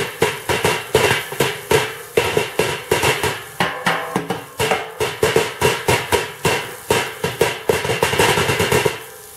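Steel barrel grill drummed with a pair of vice grips used as drumsticks: a rhythmic run of metallic clanks, several a second, each ringing briefly. The strikes stop and the ringing fades near the end.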